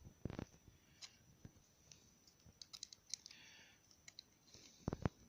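Faint small metallic clicks and a brief scrape from a door-knob lock cylinder being worked with its key, with a low knock near the start and a pair of knocks near the end.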